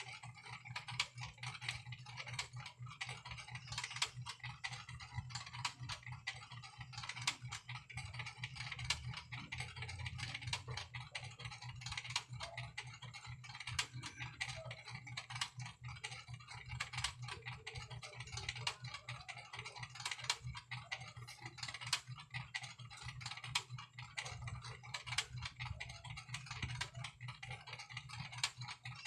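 Rapid, irregular light clicks, much like typing, over a steady low hum.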